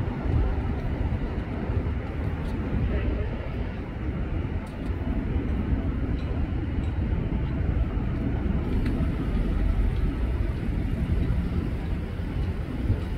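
Steady low rumble of airport noise, with a taxiing twin-engine cargo jet's engines running at low power far off and no single event standing out.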